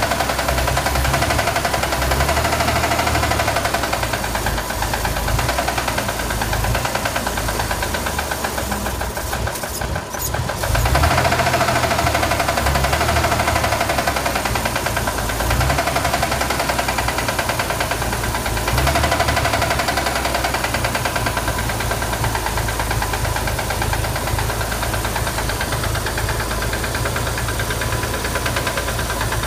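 Chevrolet Corvair air-cooled flat-six engine running with a steady, rapid knock. The level dips briefly about ten seconds in and swells again a few times. The owner wonders whether the knock is rod noise.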